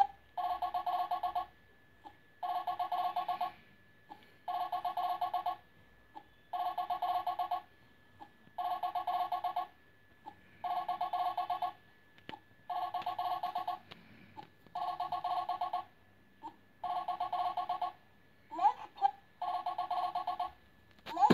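Electronic telephone-style ringing: a warbling ring of about a second, repeated every two seconds, ten rings in a row with quiet gaps between.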